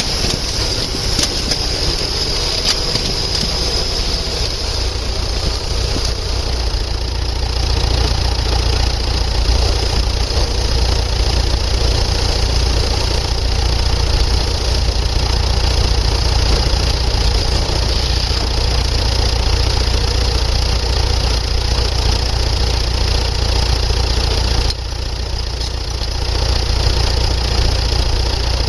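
Engine of a tank-tracked VW Beetle running steadily under load while it pulls a stuck tractor free. It gets louder about eight seconds in and drops suddenly a few seconds before the end.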